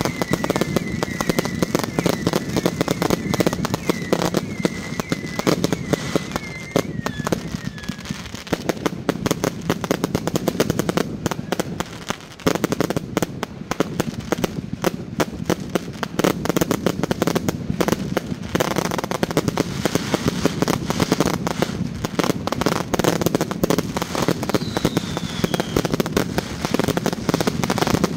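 Fireworks going off in a dense, rapid crackle of bangs. A wavering whistle runs through the first several seconds and then falls away, and a short falling whistle comes near the end.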